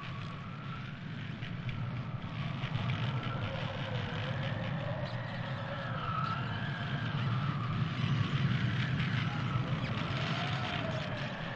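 Howling wind: a gusting low rumble with whistling tones that rise and fall as the gusts come and go.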